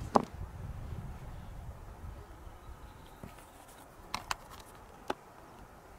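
Quiet outdoor ambience with a faint low rumble and a few sharp clicks and taps: one just after the start and three more about four to five seconds in.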